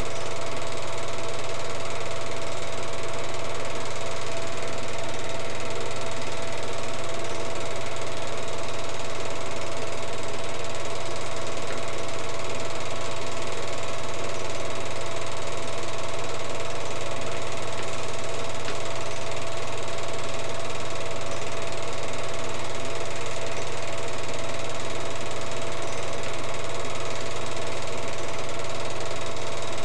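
Film projector running, an even mechanical whirr over a constant hum, with no change in speed or level.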